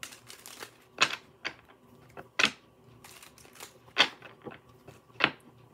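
A deck of cards shuffled by hand: irregular sharp slaps and clicks of the cards, the loudest about a second in, midway, and near the end, with soft riffling between.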